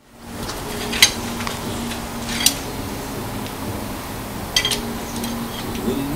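Sharp metal clinks from the steel pump handle of a hydraulic engine hoist's jack being worked by hand: a few single clinks a second or more apart, over a steady low hum.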